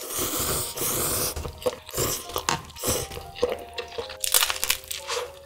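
Instant cup noodles slurped up with chopsticks in a long, loud slurp for about the first second and a half, then wet, crunchy chewing with scattered clicks.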